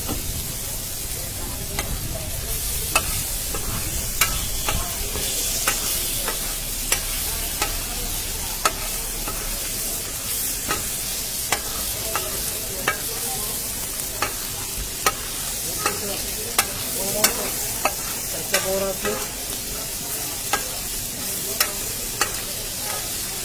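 Food frying in hot oil with a steady sizzle, while a metal utensil is stirred and knocked against the pan, giving sharp clicks about once a second at irregular intervals.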